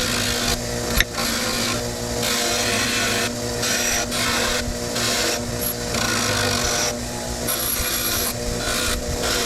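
Motor-driven wire wheel running with a steady hum while a steel adjustable wrench is pressed against it, the scratching rising and falling in strokes about once a second as the rust is brushed off.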